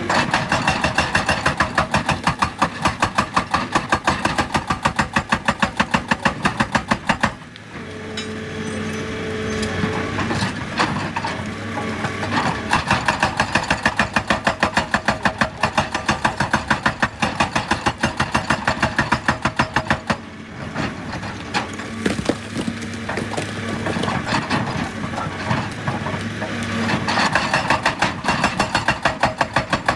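Excavator-mounted hydraulic rock breaker hammering in rapid, even blows over the running diesel engine. The blows stop briefly about seven seconds in and again around twenty seconds, leaving the engine running on its own.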